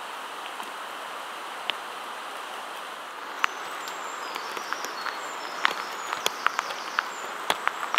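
Steady rain falling in forest: a constant hiss with sharp drops striking wet leaves and moss, the drips coming more often from about three seconds in.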